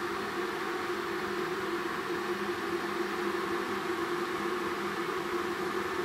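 Philips stainless-steel electric kettle heating water, a steady hissing noise from the water coming up towards the boil.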